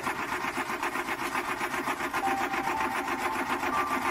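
Car starter motor cranking the engine with an even, rapid pulse, the engine turning over without catching.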